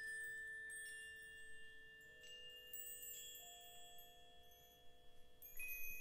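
Mallet percussion playing soft, sparse bell-like notes that ring on and overlap. A new note enters every second or two, with a flurry of quicker strokes near the end.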